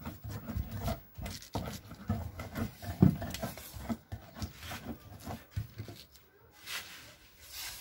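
Irregular knocks and thuds of rujak being made by hand: a knife cutting fruit against the table and a pestle pounding in a wooden cobek mortar, with one loudest thud about three seconds in. A soft scraping hiss comes near the end.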